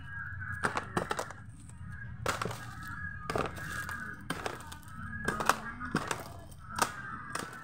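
Plastic packaging crinkling and crackling as it is handled, with sharp cracks about once a second.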